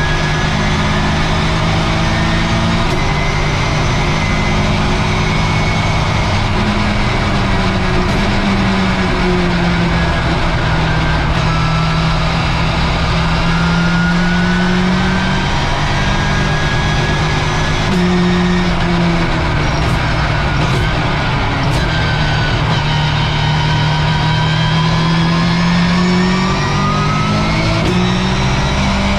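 Race car engine heard from inside the stripped cockpit, running continuously under load, its pitch climbing and falling over several seconds as the car accelerates and slows, with a few sudden pitch steps at gear changes. A few sharp clicks come about two-thirds of the way through.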